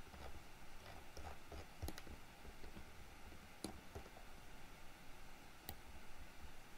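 Faint clicks of a computer mouse and keyboard, about six of them spaced a second or two apart, over quiet room hiss.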